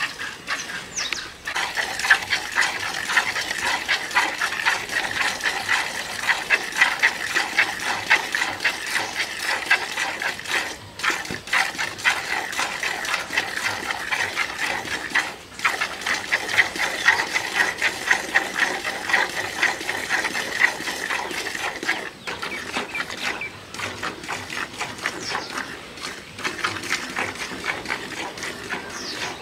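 Hand milking a cow into a plastic bucket: rapid, rhythmic squirts of milk hitting the bucket, broken by a few brief pauses.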